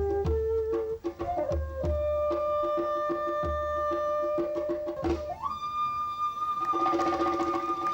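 Bamboo flute playing long held notes, gliding up to a higher held note about five seconds in, over a steady rhythm of drum beats and a fast repeated struck tone.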